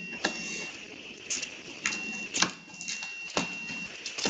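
Foil trading-card packs crinkling and being torn open by hand, with a few sharp taps of packs and cards against the table.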